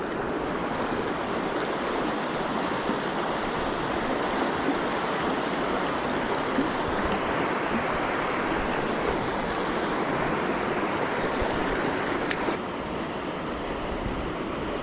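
Rushing water of a small creek running high and fast after heavy rain, a steady even wash. There is a single click about twelve seconds in, after which the water is a little quieter.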